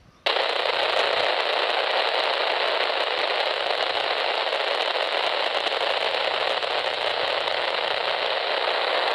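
Railroad scanner radio giving a steady rush of static hiss with no voice, switching on abruptly just after the start and cutting off abruptly near the end: the squelch opened on a transmission carrying no speech.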